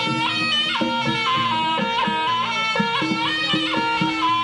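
East Javanese jaranan ensemble music: a reedy slompret shawm plays a loud, ornamented melody of held notes with quick turns between them, over steady drumming and a sustained low drone.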